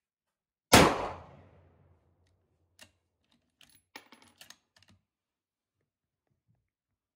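A single shot from a Ruger M77 Gunsite Scout bolt-action rifle in 5.56/.223, sharp and loud about a second in, ringing out over about a second. A couple of seconds later comes a short run of light metallic clicks as the bolt is worked to chamber the next round.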